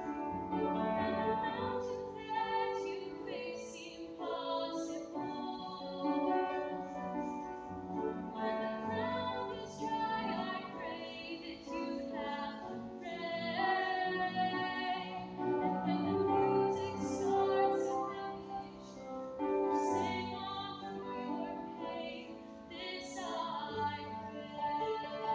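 A woman singing a solo, holding long sustained notes.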